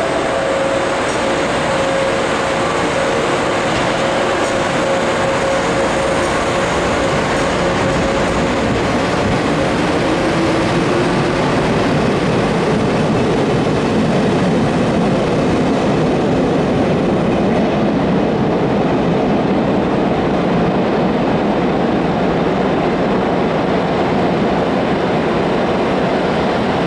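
JNR-type 413-series electric multiple unit pulling out and accelerating away: traction-motor whine rising in pitch over running noise of wheels on rail, the sound staying loud under the platform roof as the train recedes.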